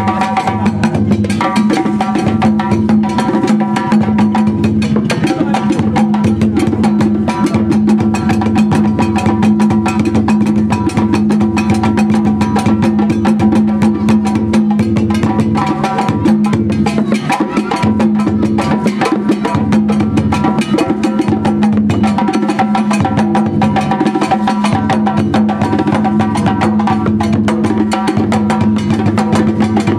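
West African drum ensemble playing without a break: djembes struck by hand over a cylindrical dundun beaten with a stick, a dense, fast, unbroken rhythm.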